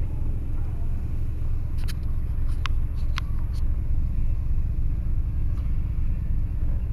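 Cadillac's engine idling, heard from inside the cabin as a steady low rumble, with a few short clicks between about two and three and a half seconds in.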